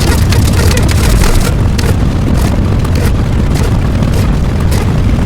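Loud, dense rumbling noise, heaviest in the low end, with no clear pitch or beat. It cuts out abruptly at the very end.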